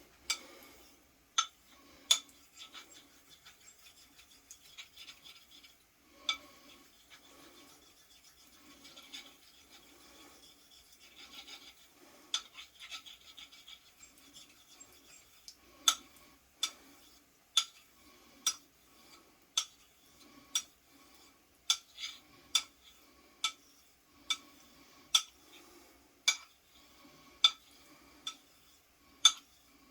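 Straight razor being honed on a whetstone: repeated strokes rubbing the blade across the stone, with sharp clicks about once a second from about halfway on as the razor is flipped and set back down on the hone.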